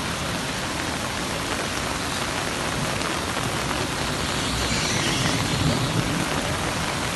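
Heavy rain falling steadily onto a flooded street, a dense, even hiss.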